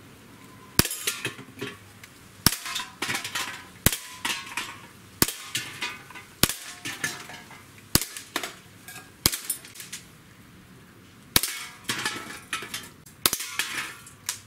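Sig Sauer P365 CO2 blowback BB pistol firing nine sharp shots, about one every one and a half seconds with a longer pause past the middle. Each shot is followed by a short tinny rattle and ring as steel BBs strike aluminium cans and knock them over. The string ends when the magazine runs empty.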